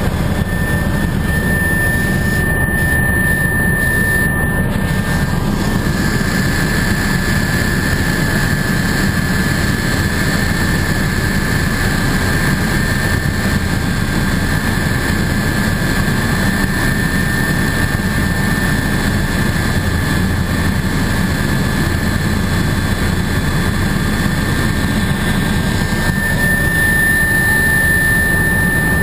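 Helicopter in steady flight heard from inside the cabin: a constant, loud rotor and engine noise with a steady high whine running through it.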